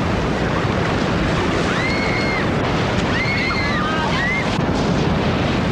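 Steady rush of whitewater in river rapids. A few short rising-and-falling cries from people rise over it, about two, three and four seconds in.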